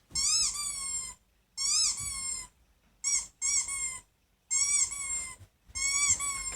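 Rubber squeaky pet toy squeezed again and again, about six squeaks of half a second to a second each, each rising briefly in pitch then holding, with short gaps between.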